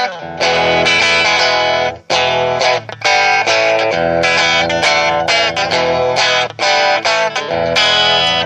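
Electric guitar, a Telecaster on its bridge pickup, played through a Trinity Tweed amp set on 3, strumming chords and picking notes with short pauses between them. At this setting the amp starts to break up, giving a lightly overdriven tone.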